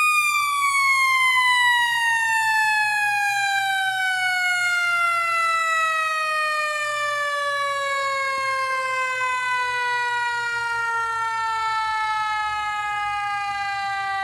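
Federal Signal Q2B mechanical fire-truck siren winding down: its wail slowly falls in pitch as the rotor coasts down.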